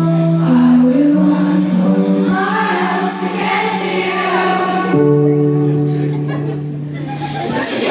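A woman singing live over sustained keyboard chords, the chord changing twice. The held chord stops near the end and crowd cheering breaks out.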